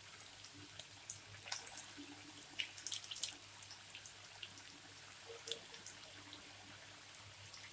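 Black chickpea kebab patties shallow-frying in hot oil on a medium flame: a faint, steady sizzle with scattered crackles and pops, most of them in the first few seconds.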